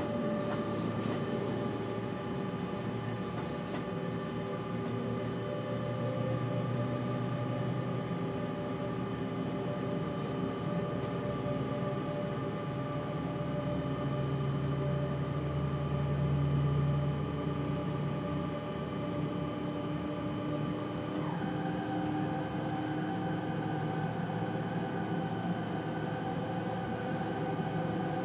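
Electric train running along the track, heard from inside the driver's cab: a steady low rumble with several steady whining tones from the drive. About 21 seconds in, one of the whines drops sharply in pitch and holds at the lower note.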